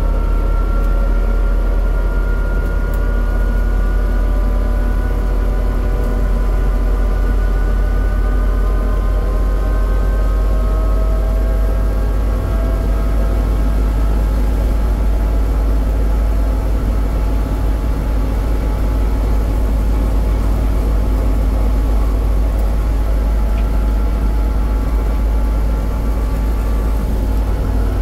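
Steady travelling noise from a moving road vehicle: heavy wind rumble on the microphone with a whine of several tones that slowly rise and fall in pitch.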